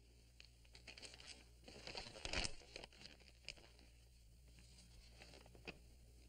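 A paper letter rustling and crinkling as it is handled and opened, loudest about two seconds in, followed by a few faint clicks.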